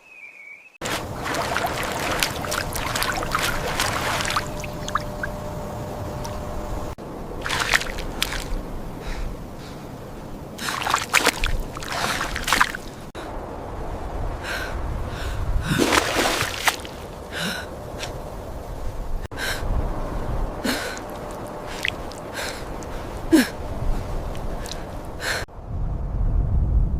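People gasping and breathing hard, with many short sharp gasps, over a steady background noise. The sound changes abruptly several times.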